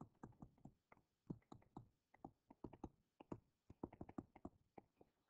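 Faint, irregular taps and ticks of a stylus on a tablet screen during handwriting, several a second in quick clusters.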